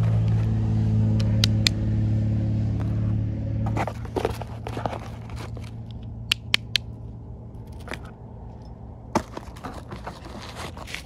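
A steady low hum that cuts off suddenly a little over a third of the way in, then handling noise: cardboard box flaps and plastic packaging rustling, with a few sharp clicks as small plastic toy tractor parts are handled.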